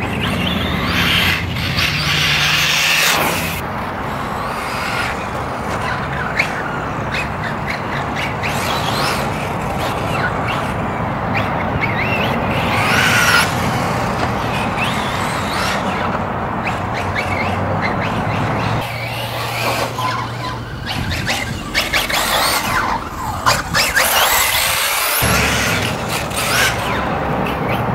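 Electric 1/8-scale RC buggy, a Kyosho MP9e, running laps on a dirt track: its motor whine and tyre noise come and go as it throttles up and off.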